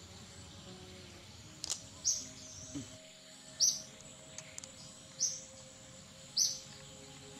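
A bird's short, high call repeating about every second and a half, over faint background music.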